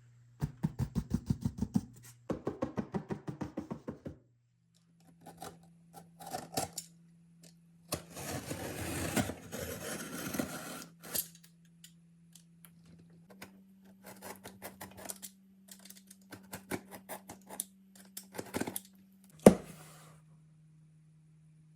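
Toy packaging being opened and handled: two runs of rapid clicking, a stretch of rustling, scattered light taps, and one sharp knock near the end, over a faint steady low hum.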